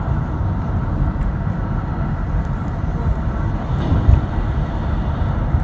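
Road noise of a moving car: a steady low rumble of tyres and engine, with a brief louder surge about four seconds in.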